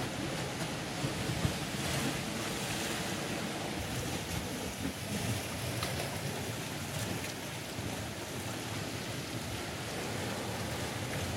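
Sea swell washing and breaking against the rocks of a narrow coastal gorge: a steady rushing wash.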